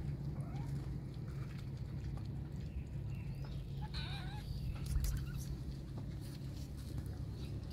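A kitten gives one short, wavering meow about halfway through, over a steady low hum.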